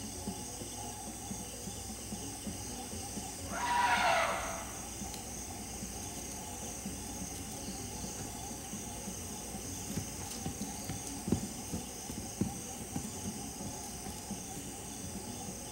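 Savanna ambience with a steady high-pitched drone, broken about four seconds in by a single loud elephant trumpet that falls in pitch over about a second. A few faint, short knocks follow in the second half.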